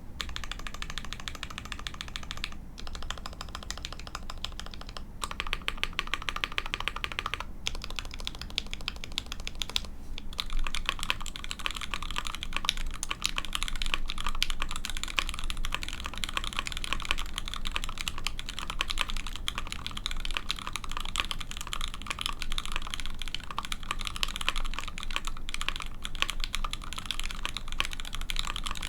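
Continuous fast typing on a mechanical keyboard with lubed Gateron Mochi switches mounted on an aluminium plate and GMK keycaps, with brief pauses in the first ten seconds and steadier, louder typing after.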